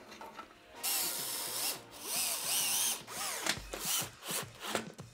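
Cordless screwdriver running in a series of trigger bursts on screws in a car's front bumper carrier, its motor whine rising and falling in pitch. Two longer runs come about one and two seconds in, then several shorter ones.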